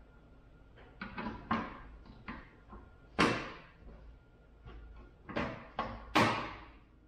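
An A-arm guard and its carriage bolts knocking and clunking against the suspension A-arm as the guard is held in place and the bolts are lined up. The knocks are irregular, with two louder ones about three and six seconds in.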